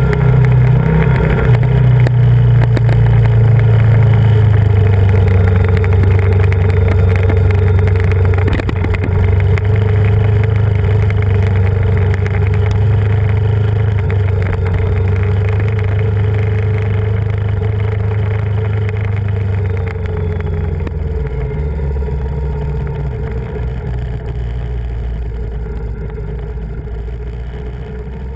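Yamaha VMAX 1700's V4 engine running steadily while riding, heard from the bike itself. The engine note steps down about 20 seconds in, and the sound slowly grows quieter.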